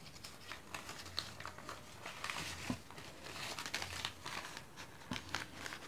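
Banknotes rustling and crinkling in the hands as they are handled and counted: a run of quick, irregular soft rustles.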